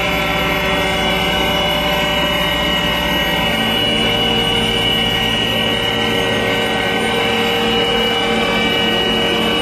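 Tracked asphalt paver running steadily at close range while laying asphalt: a diesel engine drone with a steady high whine over it.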